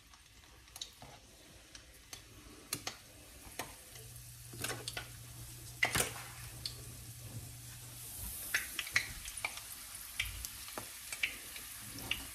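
A single wonton deep-frying in hot vegetable oil in a wok: a quiet sizzle with scattered sharp crackles and pops, the sizzle growing a little louder after a few seconds.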